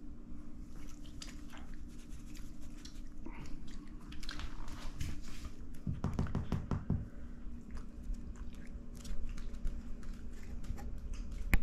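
A chihuahua chewing and biting on a piece of chicken: irregular wet chewing clicks and crunches, thickest about six seconds in, over a faint steady hum. A single sharp click at the very end.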